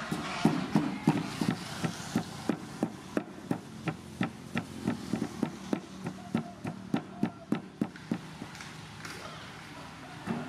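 Wooden pestle pounding in a large wooden mortar: a steady run of dull knocks, about three a second, that thins out near the end.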